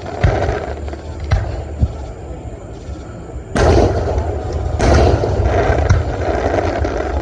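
Fireworks going off: a few sharp bangs in the first two seconds, then three louder booms about a second apart, each trailing off in a long rumble.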